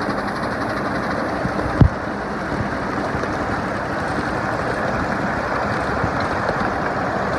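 Steady rumble of a ride-on live-steam miniature train rolling along the track, heard from aboard, with one sharp thump just under two seconds in.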